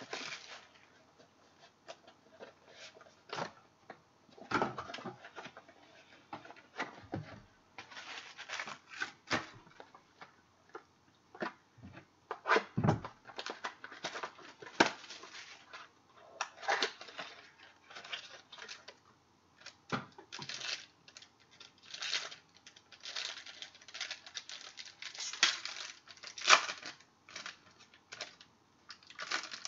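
Trading card packs and box being opened and handled: irregular tearing and crinkling of wrappers, with clicks and rustles of cards being shuffled and set down.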